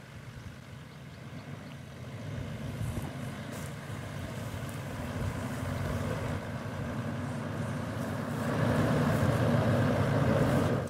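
Toyota Land Cruiser pickup engine running as the vehicle drives through grass toward the listener, growing steadily louder and loudest near the end, then cutting off suddenly.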